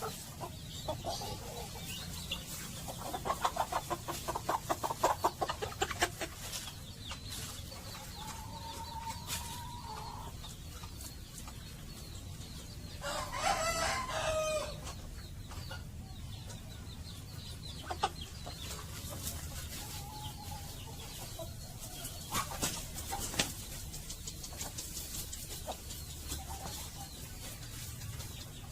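Chickens clucking, with a fast run of clucks a few seconds in. A rooster crows once about halfway through; this is the loudest sound.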